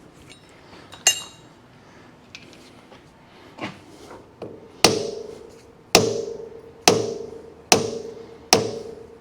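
Soft-blow hammer tapping a pipe flange in a lathe's 3-jaw chuck to seat it against the jaws: five even strikes a little under a second apart in the second half, each leaving a short metallic ring. A single sharp metallic clink about a second in.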